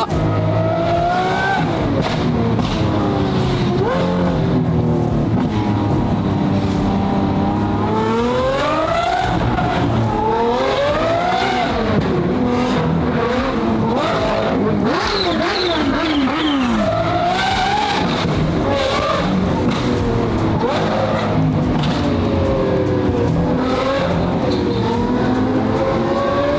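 Several high-performance car engines revving hard, their pitch climbing and falling again and again, overlapping one another.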